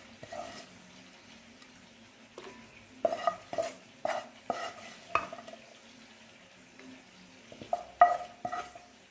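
A metal spoon clinking and scraping against steel utensils as fried onion and tomato masala is spooned from a pan into a mixer-grinder jar. There is a run of short ringing clinks from about three to five seconds in, and another cluster near the end, the loudest about eight seconds in.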